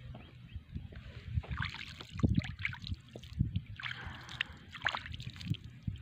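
Shallow water sloshing and splashing lightly at a muddy shoreline, in short irregular splashes with low thumps between them.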